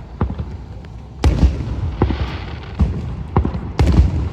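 Aerial fireworks bursting: a series of about six booms, the loudest about a second in and near the end, each followed by a low rumble.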